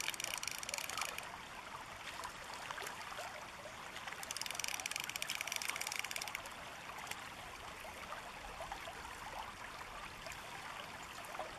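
River water running over a shallow riffle. At the very start and again about four and a half seconds in, there is a short burst of rapid ratcheting clicks from the fly reel being wound in on a hooked fish.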